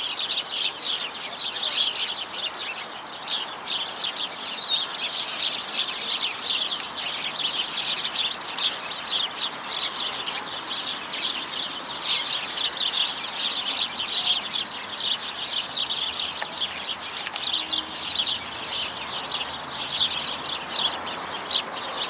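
A flock of small birds chirping busily in a tree, many short high chirps overlapping without pause. Under them runs a steady hum of city noise.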